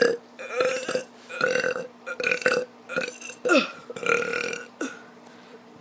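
A child burping over and over: about eight short burps in quick succession, a few sliding down in pitch, stopping about five seconds in.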